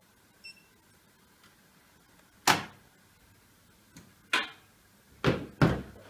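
Siemens iQ700 washing machine giving a short beep as its program is started, followed by four sharp mechanical clunks from the machine, the last two close together.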